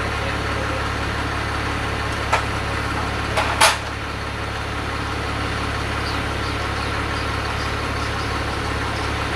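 Steady low machine hum, like an idling engine, with three sharp knocks from work on the timber frame and scaffolding about two and a half and three and a half seconds in, the last the loudest.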